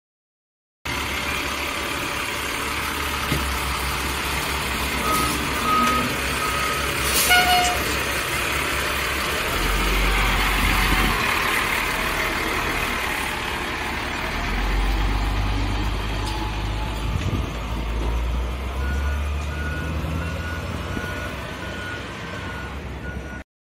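Heavy truck engine running, its low rumble swelling louder at times, with a sharp clunk about seven seconds in. A reversing alarm beeps in short even pulses briefly early on and again steadily near the end, before the sound cuts off abruptly.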